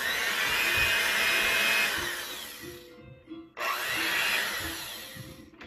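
Electric hand mixer running, its beaters whisking the liquid wet ingredients in a bowl. The motor fades and stops about three seconds in, starts again about half a second later and cuts off near the end. Soft background music plays underneath.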